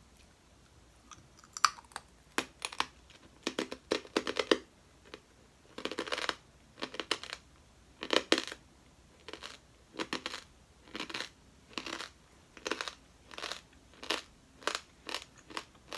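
Close-up crunchy chewing of an Asian forest scorpion's claw: a run of short, crisp crunches, irregular, about one or two a second.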